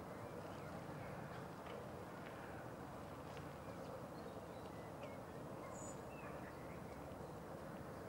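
Steady low background noise with a few faint, short, high chirps of small birds. No loud call stands out.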